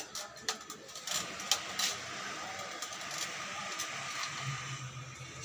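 Sewing machine running, with scattered clicks and knocks; a low steady hum comes in about four seconds in.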